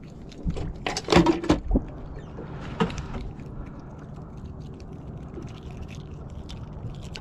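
Water lapping against the hull of a small fishing boat, with a short cluster of knocks and clatters about a second in and one more knock just before the three-second mark.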